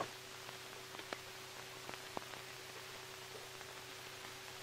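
Background hiss and steady mains-like hum of an old 1941 film soundtrack, with scattered faint clicks and crackles; no distinct action sound stands out.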